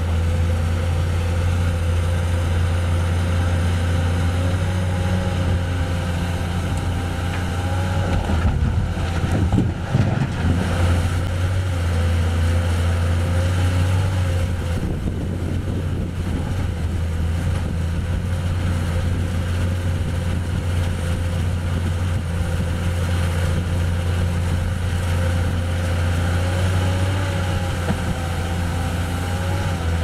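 Hyundai 480LC-9S crawler excavator's diesel engine running steadily under load, with a steady whine over the low engine note. A couple of short knocks come about nine to ten seconds in.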